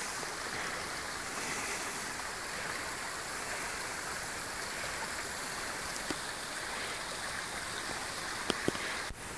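Small hill stream rushing and splashing steadily over stones, with two short sharp clicks near the end.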